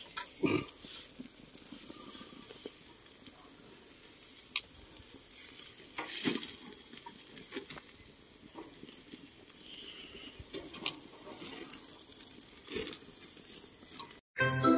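Meat sizzling on a gas barbecue grill, with metal tongs clicking and scraping on the grate now and then as the sausages, burgers and pork chops are turned. Just before the end it cuts to jingly music.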